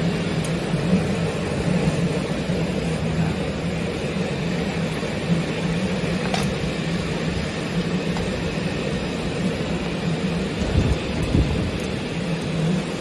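Small flat-glass washing machine running: a steady motor hum over an even rushing noise, with a faint click about six seconds in.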